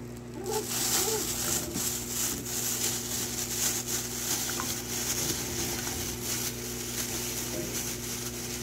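A plastic bag crinkling as small topi tambo (leren) tubers are tipped out of it into a stainless-steel pot of water, with irregular splashes and knocks as they tumble in. A steady low hum runs underneath.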